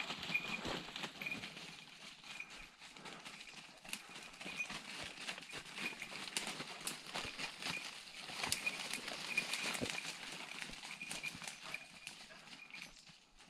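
Footsteps crunching and rustling through woodland undergrowth, with many small crackles and snaps, and a short high ringing tone that repeats at uneven intervals for most of the time.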